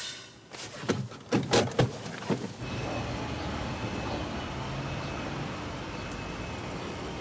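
Car doors opening and slamming shut, a handful of sharp knocks in quick succession, followed by a steady background hiss.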